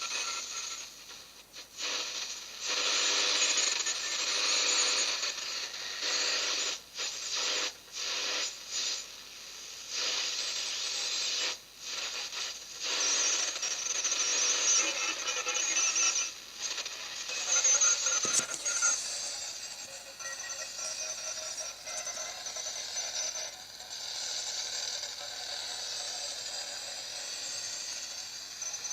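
Unidentified data signal coming through a shortwave radio receiver: harsh, noisy stretches broken by short gaps, changing about two-thirds of the way through, after a sharp click, to a steadier sound with several held tones. By the listener's account it is not SSTV; it suggests Commodore 64 data or a numbers station.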